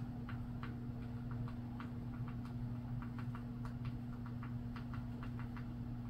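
A wren making quick, irregular ticks, about three or four a second, that stop shortly before the end, over a steady low hum.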